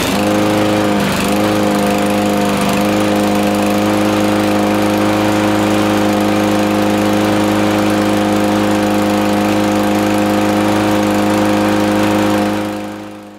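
Cub Cadet walk-behind lawn mower's small engine running steadily just after starting. It wavers briefly twice in the first few seconds, then holds an even note before fading out near the end. The smooth running shows that cleaning the dirty carburetor has cured the rough running.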